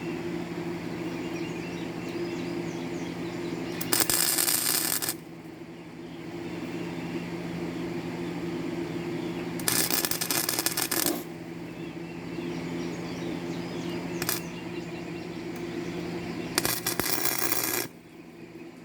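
Gasless flux-core wire welder tacking steel flat bar: three bursts of arc crackle of about a second each and one very short one, over a steady hum.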